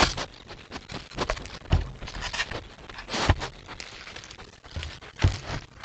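Animals moving about at close range: scattered thuds, footsteps and rustles in leaf litter and undergrowth, a few louder knocks among them.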